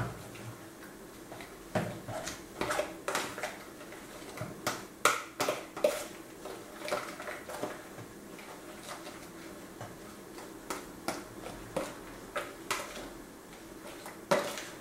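A spoon clicking and knocking irregularly against a plastic tub while chopped chard is stirred into beaten eggs.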